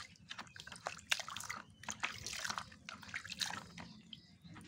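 Muddy water sloshing and splashing in a basin as a hand scrubs a mud-caked toy truck in it, in irregular short splashes and drips.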